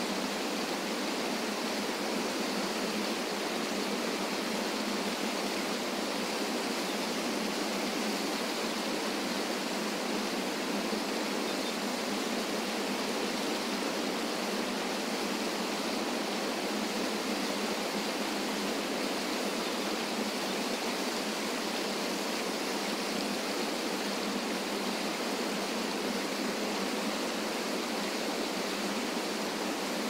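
Small river waterfall cascading over rocks into a pool: a steady, even rush of water with little low rumble, unchanging throughout.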